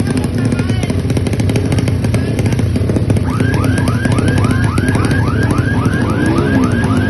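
Drag-racing motorcycle engine running steadily. From about three seconds in, a warbling alarm-like tone joins it, repeating about three times a second.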